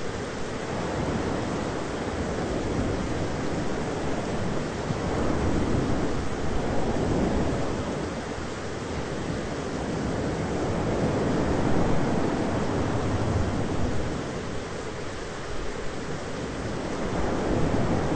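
Thunderstorm ambience: a steady rush of rain with low rumbles of thunder that swell and ease over several seconds.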